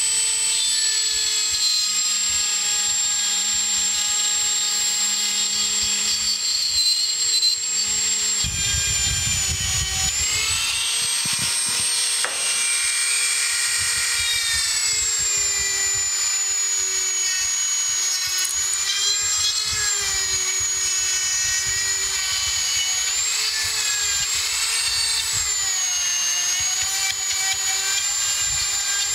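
Dremel flexible-shaft rotary tool running with a small burr, cutting oil grooves into a babbitt bearing shell: a steady high whine whose pitch dips and wavers as the burr bites into the soft metal.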